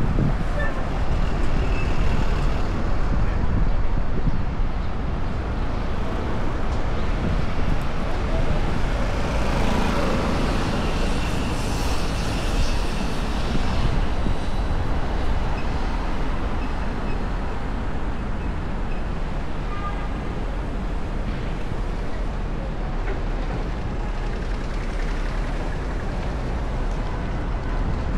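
City road traffic heard from a moving bicycle: a steady rumble of cars and trucks mixed with wind noise on the microphone, swelling for a few seconds near the middle.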